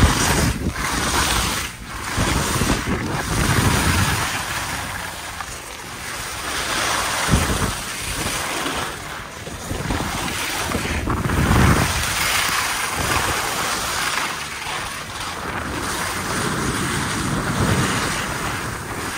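Skis scraping over a hard-packed piste, the hiss swelling and fading every few seconds, with wind buffeting the microphone.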